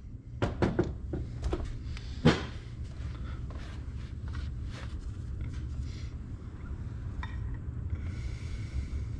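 Light metallic clicks and clinks of a socket on an extension, with a screw taped into it, being fed down into the oil filter housing of a Ford 6.0 Powerstroke diesel, one louder knock about two seconds in. There is a brief rubbing hiss near the end, over a steady low hum.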